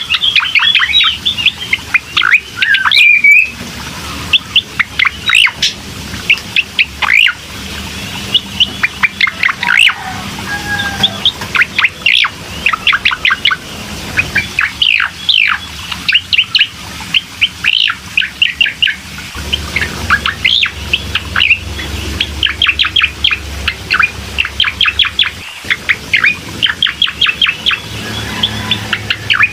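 Recorded song of a cucak koreng: quick runs of high, sharply falling chirps and short whistled notes, one burst after another with brief gaps, played as a lure track to set a caged bird singing.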